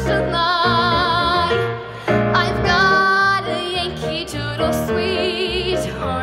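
A woman singing a patriotic medley into a microphone over instrumental accompaniment, holding three long notes with a wide vibrato.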